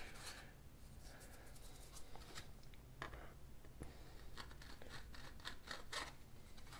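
Faint scraping and scratching of a small metal hobby tool twisted in a hole in a hard plastic miniature base, shaving the hole wider; a handful of short scrapes stand out, the strongest about three and six seconds in.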